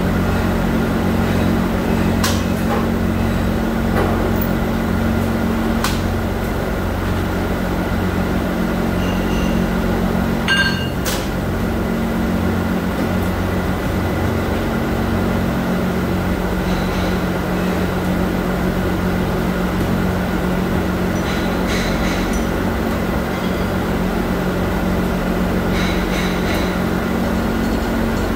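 Steady mechanical hum of running factory machinery, with several constant low tones and a higher whine above them. Occasional light clicks, with a sharper clatter about ten and a half seconds in.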